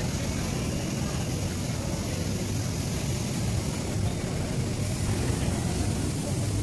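Steady low rumble with a hiss over it: continuous background noise of a large indoor space, with no distinct sounds standing out.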